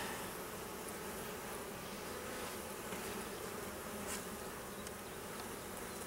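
Honey bees from an opened hive buzzing in a steady hum.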